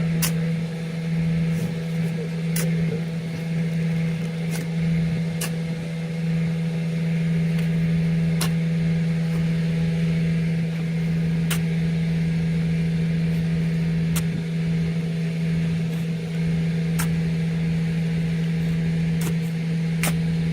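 A machine running steadily: an even, unchanging hum at one constant pitch, with faint clicks now and then.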